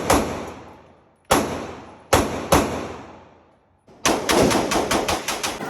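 Pistol gunfire: a few single shots, each ringing out for about a second, then about four seconds in a rapid string of roughly nine shots, about five a second.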